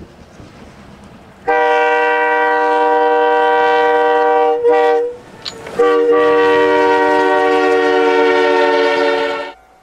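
Locomotive air horn sounding two long blasts, a steady chord of several notes with a short break between them, from a train plowing through deep snow. A low rumble of the running train comes before the horn.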